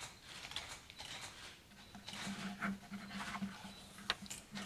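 Faint scratching of pens on paper, with paper rustling, as documents are signed at a desk. Two sharp clicks come near the end.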